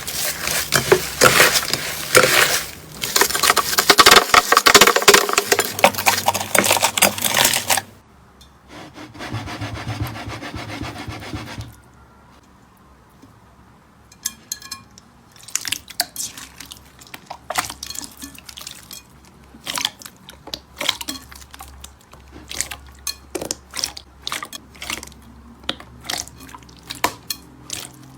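Slime being squeezed and kneaded by hand: dense crackling and squishing for about the first eight seconds, then quieter working, a short near-quiet pause, and scattered sharp pops and clicks in the second half.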